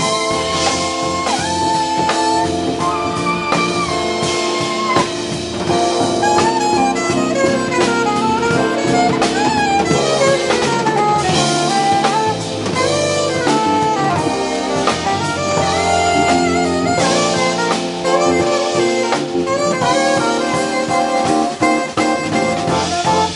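Live jazz quartet: saxophone playing a flowing lead line of quick runs over keyboards, electric bass and a drum kit.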